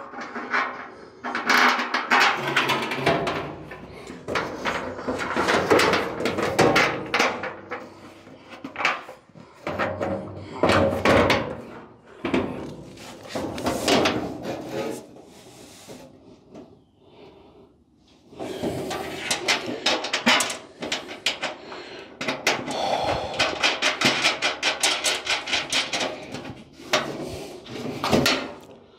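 Clattering and knocking of steel sheet-metal parts and hand tools as a rear fender is fitted and bolted to a pickup's steel stepside bed, with a quieter spell in the middle and runs of rapid clicking in the second half.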